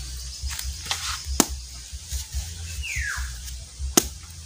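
A knife chopping into the husk of a young green coconut: a few sharp knocks, the loudest about a second and a half in and again near the end. A short falling whistle-like call sounds about three seconds in.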